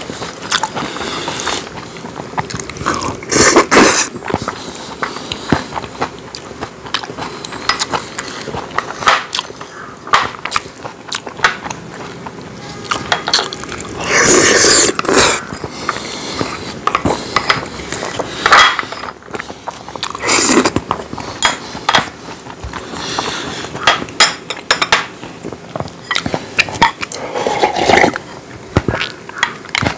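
Close-up eating sounds: wooden chopsticks clicking against porcelain bowls and chewing of braised spicy chicken, with a few louder slurps. Near the end comes a slurp of drinking broth straight from a bowl.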